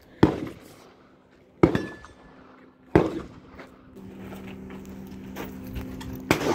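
Four gunshots from rifles on an outdoor range, each a sharp crack with a short echoing tail, the first three about a second and a half apart and the last after a longer pause. From about four seconds in, a steady low hum runs under them.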